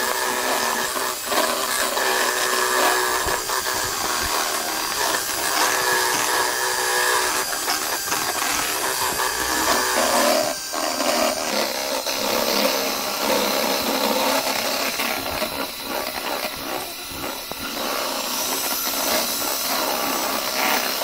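Electric hand mixer running steadily, its beaters whipping egg whites in a stainless steel bowl toward stiff peaks for a meringue. The sound changes briefly about halfway through.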